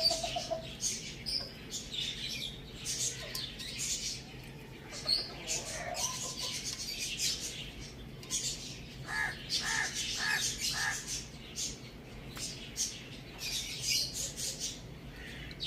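Birds chirping and chattering continuously in quick, high notes, with a run of four short, evenly spaced calls about nine to eleven seconds in.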